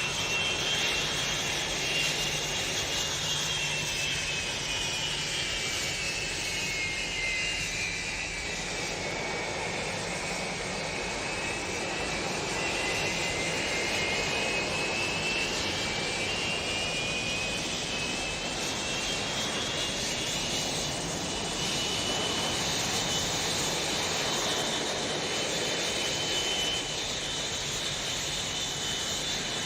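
Steady engine noise with a high whine that slides lower over several seconds, then climbs back and holds steady.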